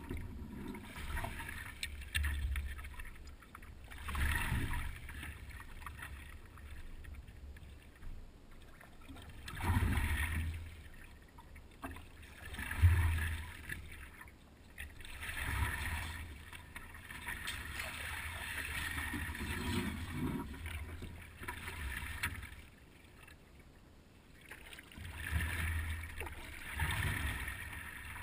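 Paddle strokes and water swishing along a paddleboard, in irregular swells every few seconds, with low knocks coming through the board. The sharpest knock is about 13 seconds in.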